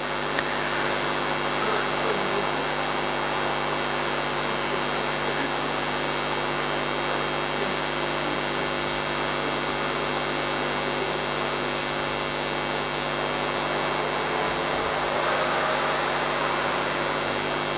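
Steady hiss with a constant low hum from a film clip's soundtrack played over the hall's loudspeakers.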